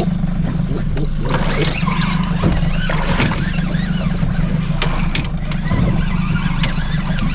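Small fishing boat's engine running steadily, a continuous low hum, with noise from wind and water around the boat.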